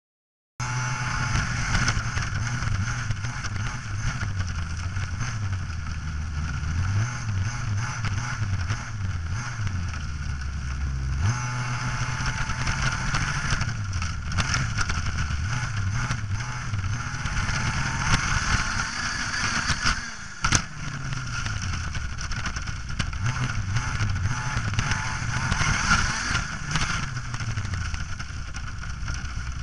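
Radio-controlled model vehicle's motor running and changing pitch as the throttle rises and falls, heard close from a camera mounted on the vehicle as it drives over grass. A single sharp knock about two-thirds of the way through, with a brief drop in level.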